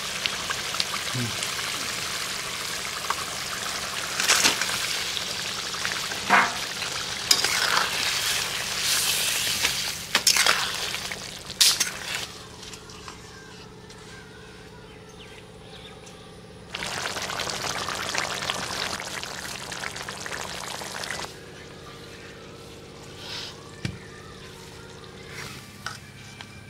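Fish curry gravy bubbling and sizzling in a steel kadhai, with sharp knocks and scrapes of a metal ladle. The hiss stops abruptly about twelve seconds in, returns for a few seconds, then stops again.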